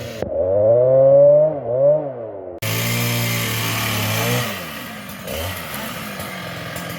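Two-stroke Husqvarna chainsaw revving up and down, then held at high speed for about two seconds before dropping back to a lower speed about four and a half seconds in.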